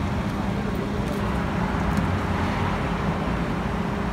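Stretch limousine's engine idling close by, a steady low hum, with street traffic noise behind it.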